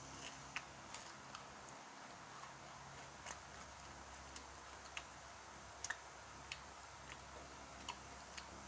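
Scattered sharp clicks and taps at an uneven pace, some louder than others, over a faint steady hiss.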